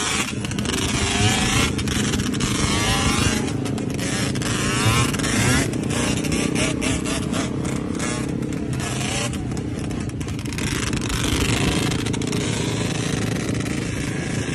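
Yamaha Banshee's twin-cylinder two-stroke engine running while riding, its pitch wavering up and down with the throttle, under a continuous rush of noise.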